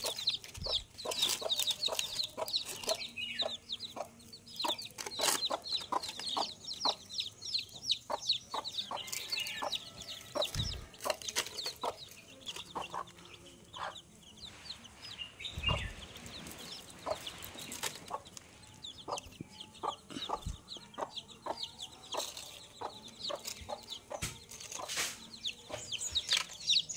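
A hen clucking in short, repeated clucks while her chicks peep continually with many high chirps. A few dull thumps come in between.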